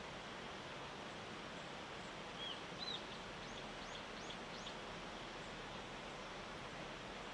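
A small bird gives two short arched chirps about two and a half seconds in, then four fainter, higher notes, over a steady background hiss of the morning ambience.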